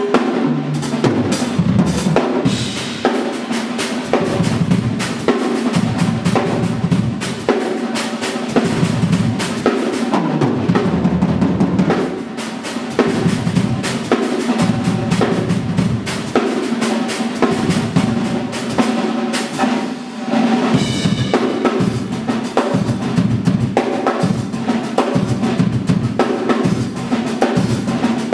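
Drum kit played solo in a fast, dense stream of strokes across snare, toms and bass drum, with cymbal crashes ringing out about two seconds in and again about twenty-one seconds in.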